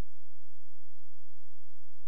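A steady low hum over faint hiss, unchanging, with no other sound: the background noise of the recording.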